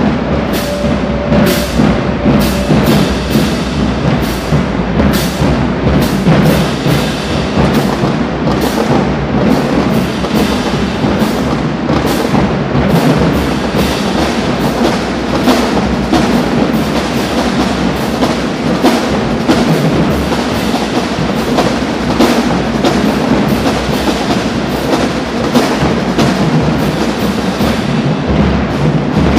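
Marching drumline playing a fast, driving percussion cadence, with dense, evenly repeated drum strikes and deep bass drum hits.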